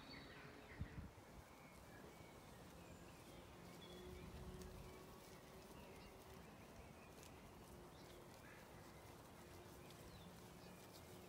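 Faint birdsong: scattered short chirps and calls, with a soft thump about a second in.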